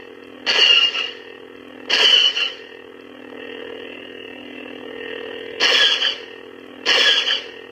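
Lightsaber sound effects from a Prizm V4 sound board played through the hilt's speakers: a steady electronic hum, broken four times by short hissing bursts of about half a second each.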